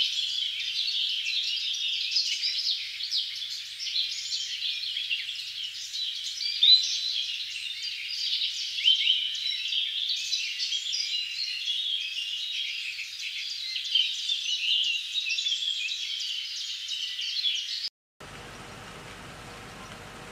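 A dense chorus of many birds chirping and calling over one another, which cuts off suddenly near the end and gives way to a steady, fainter hiss.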